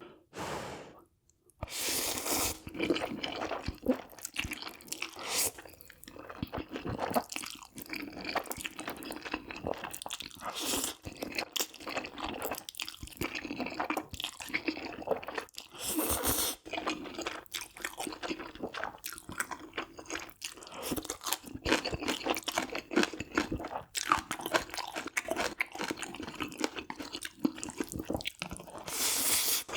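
Close-miked chewing and crunching of food, dense and continuous, starting about a second and a half in after a brief pause.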